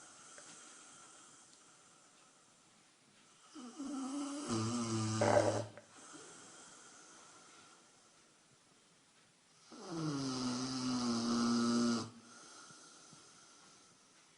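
A 155-pound Rottweiler snoring. Two long snores, each about two seconds, come about six seconds apart, with quieter breathing between them.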